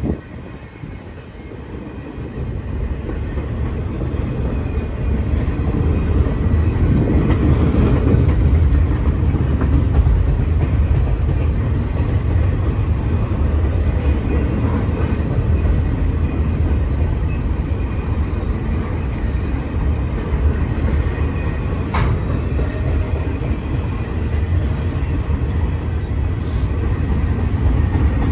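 Norfolk Southern freight train rolling past close by: a loud, steady rumble of rail cars that builds over the first few seconds and then holds, with strong wind buffeting the microphone. A single sharp click comes about three-quarters of the way through.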